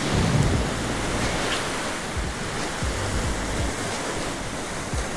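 Surf washing over the rock blocks of a jetty, with wind buffeting the microphone in low rumbling gusts.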